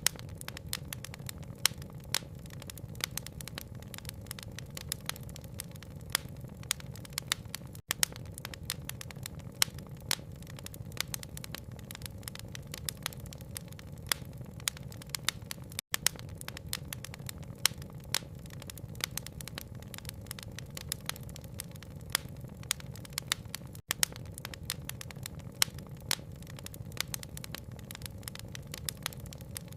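Wood fire crackling with frequent sharp pops over a steady low rushing bed of rain-and-fire ambience. The sound cuts out for an instant about every eight seconds, where the loop repeats.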